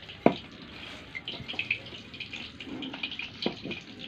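Wooden rolling pin rolling out chapati dough on a floured board, with a sharp knock about a quarter second in and a smaller knock about three and a half seconds in, over a faint crackling hiss.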